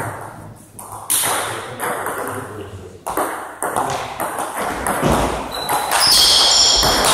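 Table tennis rally: the celluloid ball clicking off rubber bats and the table, starting from a serve and growing quicker about five seconds in, with a short echo after each hit. High squeaks near the end, from shoes on the wooden floor as the players lunge.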